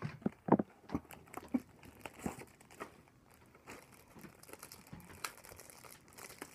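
Thin clear plastic macaron packaging crinkling and crackling in the hands as it is worked at to get it open, in irregular sharp crackles, the loudest about half a second in.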